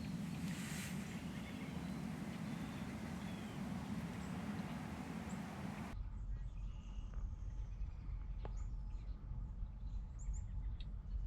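Steady low hum, then after an abrupt change a low rumble with faint, short, high bird chirps and two sharp clicks.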